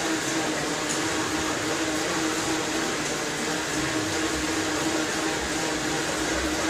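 Mountain bike tyres spinning on a set of bicycle rollers under steady pedalling: a constant whirring drone with a steady hum.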